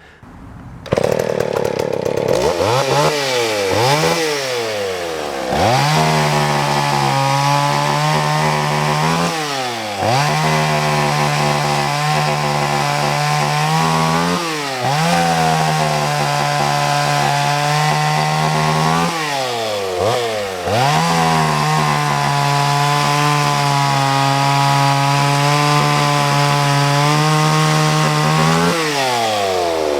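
Vintage McCulloch PM610 two-stroke chainsaw engine running, in good running order. It is revved in long, steady high-speed holds, each broken by a quick drop back toward idle and a fast climb up again.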